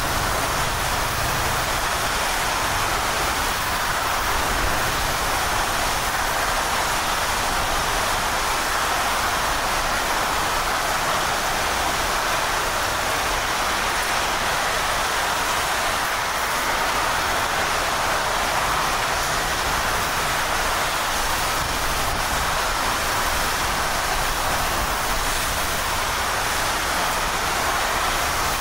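Steady, even rush of heavy hurricane rain and wind, with no breaks or separate knocks.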